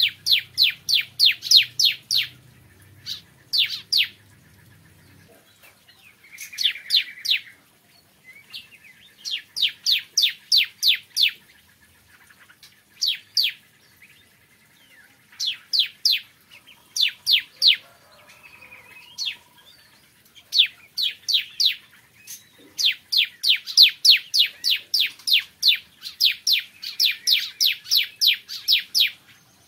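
Bar-winged prinia (ciblek kristal) singing: runs of sharp, high chirps at about four a second, repeated in bursts with short pauses between them.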